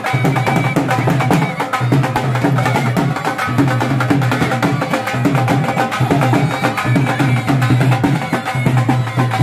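Been (gourd pipes) playing a melody over a steady low drone, with dhol drums beating a fast rhythm: Haryanvi been-band folk music.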